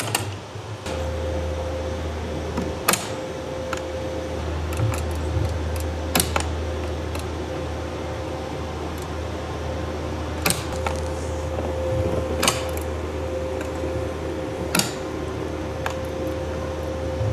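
Steady low machine hum with a faint steady tone. Over it, a sharp click every two to four seconds from a steel-cable hand winch being cranked slowly as it pulls a carabiner under rising load.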